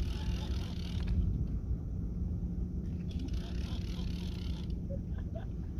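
Fishing reel being cranked in while a hooked gar is fought, a mechanical whirring heard in two stretches, at the start and again from about three seconds in, over steady wind rumble and a low, steady hum.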